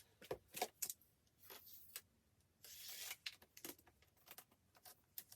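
Light handling of an album's packaging and inserts: scattered small clicks and taps of paper, card and plastic, with a brief rustle about three seconds in.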